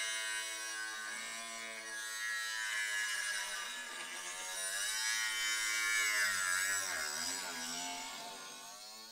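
Small angle grinder cutting metal, its motor whine wavering in pitch and sagging as the disc bites, then fading near the end.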